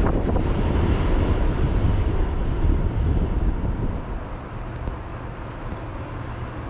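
Freight train passing, with a steady rumble of wheels on rails that dies down about four seconds in.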